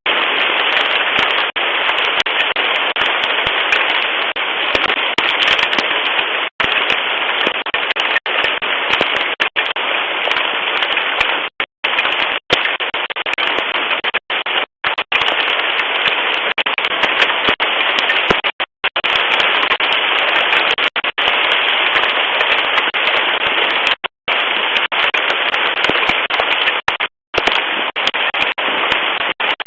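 Hail pelting down hard: a loud, dense, unbroken crackling clatter, like rocks hitting the house. It is heard through a Ring video doorbell's microphone, which sounds thin and narrow and drops out completely for an instant several times.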